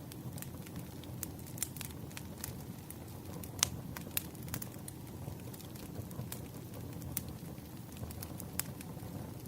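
Wood fire crackling: a steady low rumble of burning logs with irregular sharp pops and snaps. The loudest snap comes a little over three and a half seconds in.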